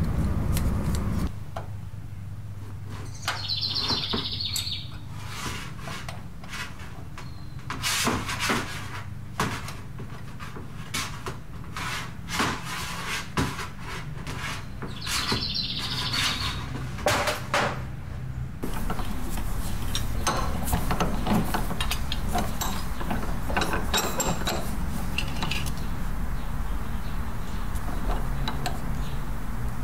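Irregular clinks and taps of a wrench on a vintage Ford tractor's hydraulic hose fittings, with a bird chirping twice, a few seconds in and again about halfway. About two-thirds through, the background changes to a steady hum with light clicks of a part being handled at a bench vise.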